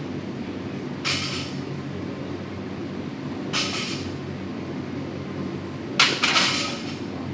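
Gym background: a steady low hum with four short, sharp knocks of equipment being handled, about a second in, at three and a half seconds, and two close together near six seconds.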